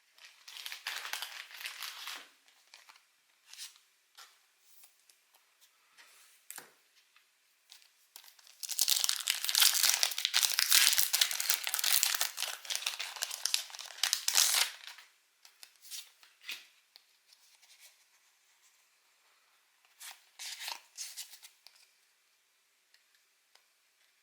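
Foil Pokémon trading-card booster pack wrappers crinkling and tearing. There is a short burst of crinkling about a second in, then a long, loud stretch of crackling and tearing midway, and a few brief rustles near the end.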